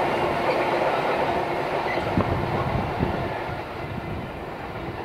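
Freight train of flat wagons rolling away, wheels clattering on the rails with a couple of sharp knocks about two and three seconds in, the sound fading as the rear vehicle recedes.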